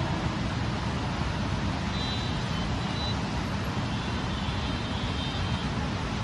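Steady distant city traffic noise heard from high above: an even low rumble with hiss, and a few faint, short high tones.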